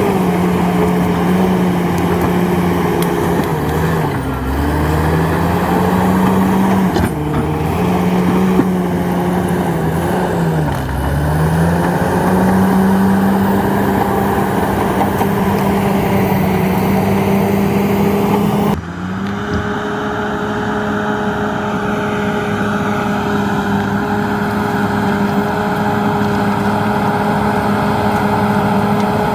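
Komatsu D68ESS bulldozer's diesel engine running steadily. Its pitch dips and recovers twice, as it lugs down under load and picks back up. About two-thirds of the way in the sound changes abruptly, then carries on steady.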